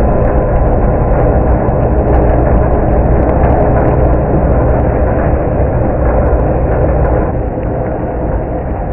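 Remote-control stump grinder running loud and steady, its engine and cutting wheel working, easing off somewhat about seven seconds in.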